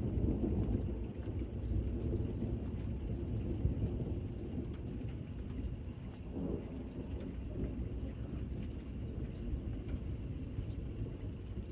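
Rolling thunder rumbling over steady rain. The rumble is loudest at the start, dies down, and swells again briefly about halfway through.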